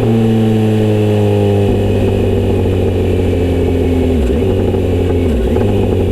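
Kawasaki Z900RS inline-four engine through a Misty Kintaro short-pipe exhaust with L silencer. The revs fall steadily after a rev-up, then settle into a rougher, uneven low rumble that dips briefly twice.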